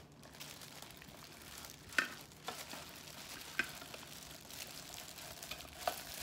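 Clear plastic wrapping crinkling and rustling as it is handled, with a few sharp crackles.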